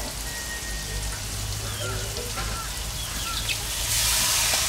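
Soaked rice poured from a steel bowl into a hot aluminium kadai of ghee-fried peas on a wood-fired stove. About four seconds in, the wet grains land in the hot ghee with a sudden loud rush of hissing.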